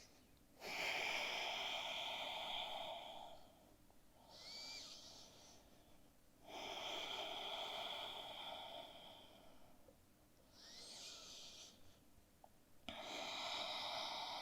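A person breathing slowly and deeply during a held yoga forward fold. Long breaths of about three seconds alternate with shorter ones, with brief pauses between.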